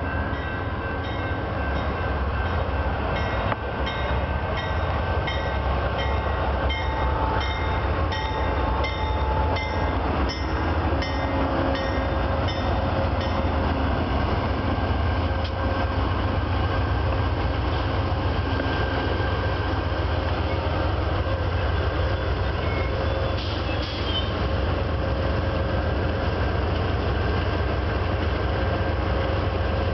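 Amtrak GE Genesis diesel locomotives rolling slowly past with a steady engine rumble. A locomotive bell rings about one and a half strokes a second for the first dozen seconds, then fades, and a thin steady squeal from the train carries on.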